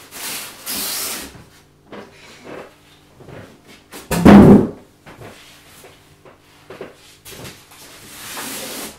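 Polystyrene foam packing blocks being pulled free and handled, rubbing and scraping. About four seconds in, a foam block is tossed onto the wooden floor with a loud thud, the loudest sound.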